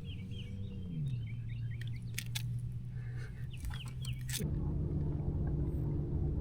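Short bird chirps over the steady hum of a boat motor. The motor's pitch drops about a second in, then steps up and gets louder about two-thirds of the way through. A few sharp clicks are heard along the way.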